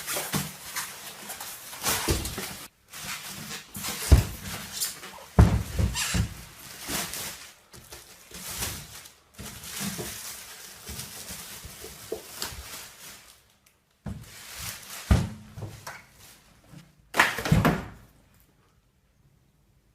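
Irregular knocks, thunks and clatter of things being handled and set down, stopping short near the end.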